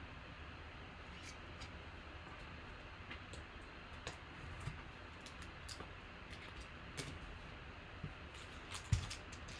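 Trading cards being handled and laid down on a tabletop mat: faint scattered clicks and light taps over low room hiss, with a sharper knock about nine seconds in.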